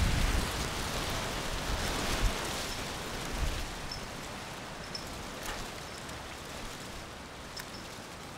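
Wind on the microphone: a steady hiss with low buffeting that is strongest at the start and eases off over the first few seconds. A few faint small clicks sound over it.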